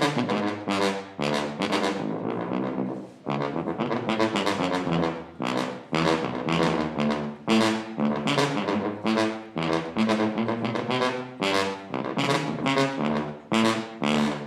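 Banda tuba (a sousaphone) played solo, running through a string of short, separate notes that move up and down in a melodic bass line.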